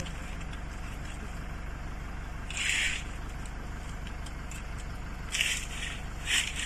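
Tractor engine running steadily off-camera, a low, evenly pulsing hum, with three brief hissing rushes over it.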